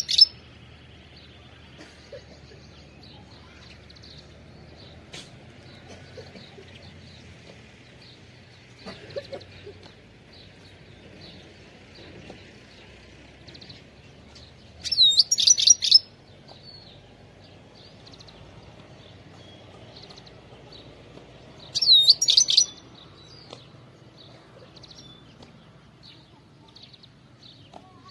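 European goldfinch (Carduelis carduelis) singing in short, loud bursts of high twittering notes about a second long: one right at the start, another about halfway through and a third about three-quarters through. Faint chirps are heard between the bursts.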